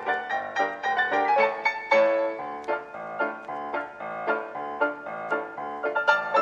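Background piano music, a quick stream of struck notes.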